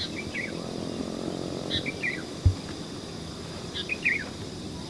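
A bird calling repeatedly, one short phrase of a high note followed by quick falling chirps about every two seconds, over a steady high insect drone in the open countryside. A brief low bump comes about two and a half seconds in.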